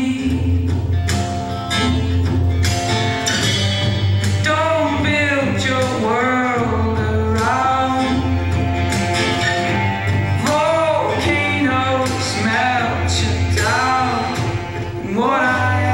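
Song with a male singing voice over bass, guitar and regular percussion.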